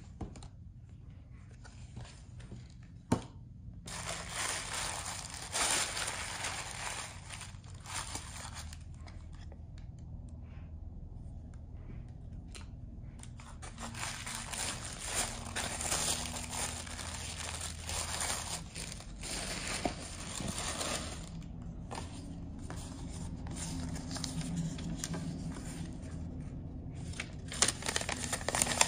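Paper rustling and crinkling as card inserts, a folded paper sheet and till receipts are handled and unfolded, in two longer stretches. There is a sharp tap about three seconds in and a few more near the end.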